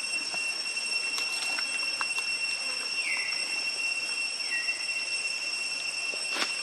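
Steady high-pitched insect drone, with two short falling chirps about three and four and a half seconds in and a few faint clicks.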